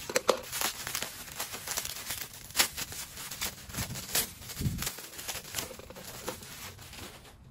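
Plastic bubble wrap crinkling and rustling as it is handled and pulled open, with irregular sharp crackles throughout.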